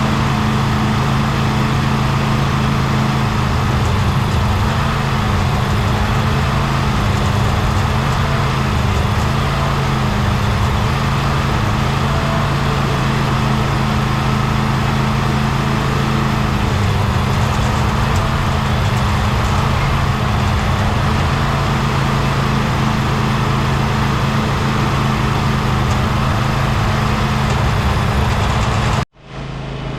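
Engine running steadily at a constant speed, cutting off abruptly near the end.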